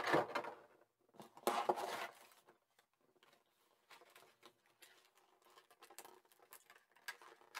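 Rigid plastic blister-pack trays being lifted out and handled: two louder plastic rustles and clatters in the first two seconds, then faint scattered taps and ticks as the trays are turned over.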